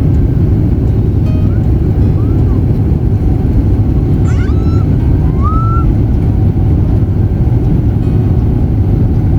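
Steady, loud, low rumble of an airliner's cabin noise. A few faint, short rising tones sound over it in the middle.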